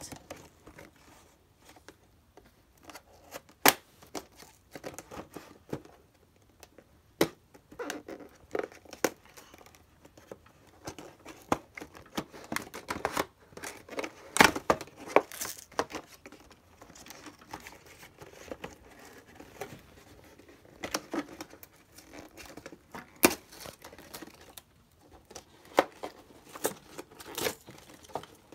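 Cardboard toy box being opened by hand: the packaging tearing and crinkling, with scattered sharp snaps and clicks.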